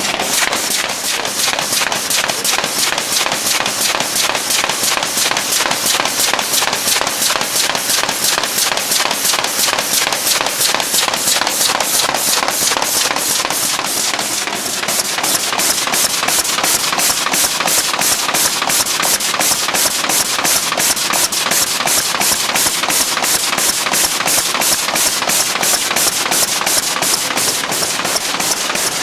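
Carton folder-gluer machine running at production speed, a fast, even mechanical clatter of repeated knocks as 6-bottle carrier blanks are fed through its belts and nick breaker.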